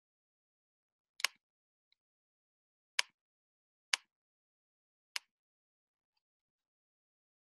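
Four sharp computer mouse clicks spread over a few seconds, the first a quick double, with near silence between them.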